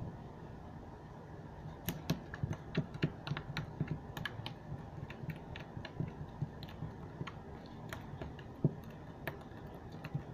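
Green slime being squished, poked and pulled apart by fingers on a table, making a quick, irregular run of small sticky clicks and pops.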